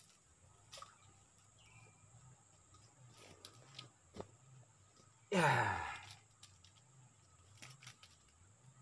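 A man's voiced sigh about five seconds in, under a second long, falling steeply in pitch. Faint clicks of handling come before and after it.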